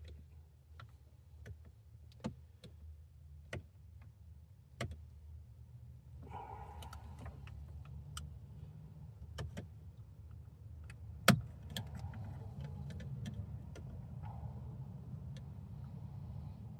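Scattered small clicks and taps of hands handling small plastic dash parts, a bulb socket and its tabs, with one sharper click about eleven seconds in, over a low steady hum.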